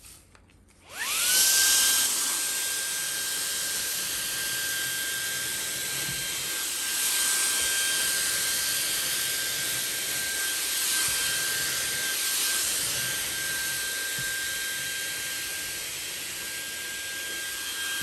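Shark mini cordless handheld vacuum switched on about a second in: its motor whines up quickly to a high pitch and then runs steadily with a rushing hiss of air as it vacuums rice and sugar off a carpet. Debris is caking its filter, and near the end it has almost stopped sucking.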